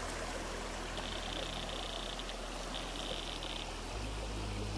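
Steady outdoor background hiss, with two stretches of a high, pulsing trill, about a second in and again near three seconds. A low hum sets in near the end.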